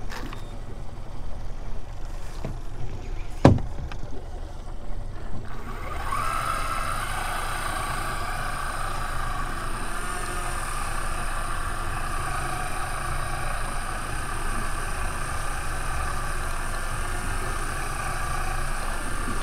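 Electric deep-drop fishing reel free-spooling, its spool spinning as the weighted rig sinks toward the bottom. After a few clicks, a steady whine comes in about six seconds in, rises briefly and then holds level.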